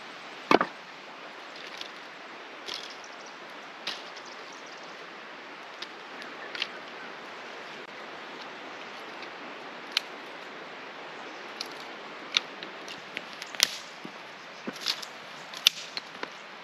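A sharp knock of split firewood about half a second in, then scattered sharp cracks of dry sticks being snapped by hand, coming faster over the last few seconds, over a steady background hiss.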